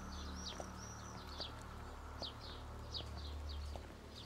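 Small birds chirping: a quick run of high whistled notes, then scattered short high chirps, over a faint low hum.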